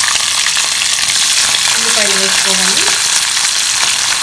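Green chillies and tempering seeds frying in hot oil in a kadai, a loud steady sizzle; sliced onions are in the pan by the end.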